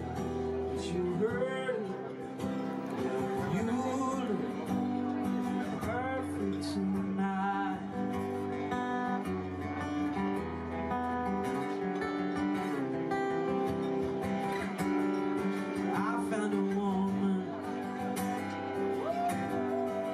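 Acoustic guitar music with a singing voice.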